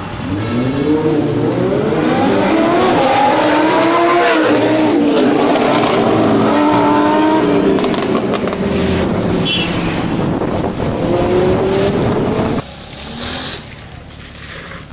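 A sports car's engine revving hard under full acceleration: the pitch climbs, drops at an upshift and climbs again, then runs on more evenly. It cuts off abruptly near the end, leaving faint wind noise.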